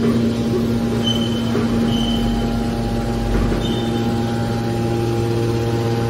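Hydraulic metal baler's power unit, its electric motor and hydraulic pump, running with a steady hum.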